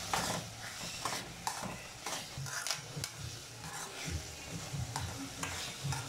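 A spoon scraping and clinking irregularly against a metal kadai as thick Indian gooseberry (nellikkai) thokku is stirred, the paste being cooked down until it thickens.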